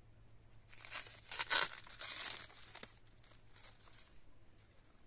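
Plastic grafting tape crinkling and tearing as it is pulled and unwound from a tree graft, in a cluster of crackles about a second in, with a few fainter ones later.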